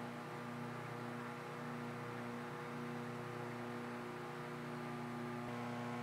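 Microwave oven running during a leakage test: a steady electrical hum with several even overtones over a faint hiss.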